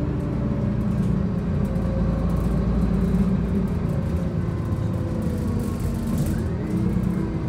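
Cummins ISC diesel engine and ZF 6HP504 Ecomat automatic gearbox of a Bustech XDI bus driving along, heard from inside the cabin as a steady drone. A faint whine rises and falls about six seconds in.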